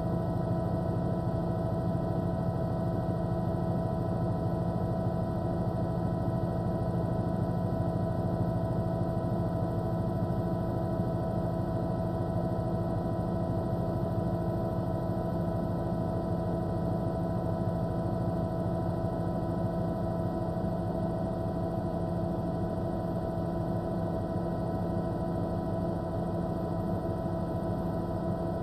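Steady drone of a helicopter in flight: several constant whining tones over a low, fast-pulsing rumble.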